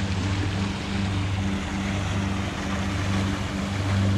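Houseboat's engine running steadily under way, a low even drone, over the rush of the wake churning behind the stern.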